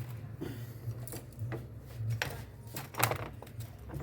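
Light clicks and knocks of tools and small metal parts being handled while a starter motor is reassembled, about half a dozen separate clicks with the loudest about three seconds in, over a steady low hum.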